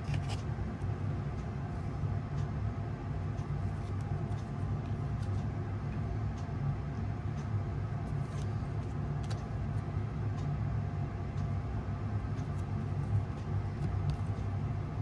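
Steady low hum with a few steady tones running underneath, and faint scattered clicks of hockey trading cards being flipped and shuffled by hand.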